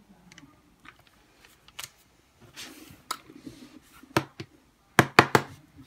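Pencil scratching on paper in short strokes, among scattered sharp clicks and knocks on the tabletop; the loudest is a quick run of three knocks about five seconds in.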